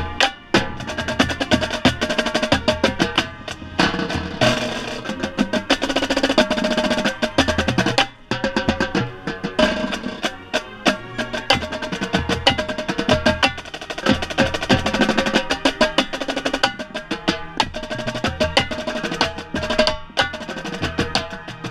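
Marching band playing, led by close-up marching tenor drums (quads) playing fast, dense runs of strokes, with sharp rim clicks among them.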